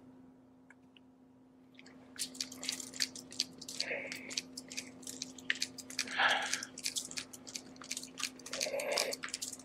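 Putty knife dragged through wet epoxy: a run of small sticky clicks and squelches that starts about two seconds in.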